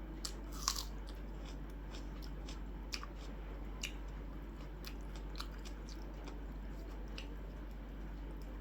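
Close-up mouth sounds of a person eating: chewing with scattered crisp clicks and crunches, the loudest about a second in.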